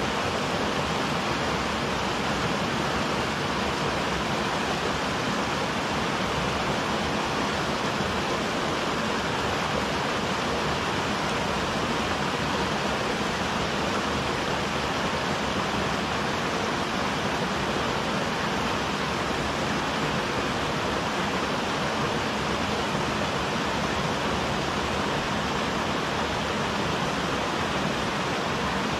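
Small mountain-stream waterfall pouring into a rocky pool: a steady, unbroken rush of water.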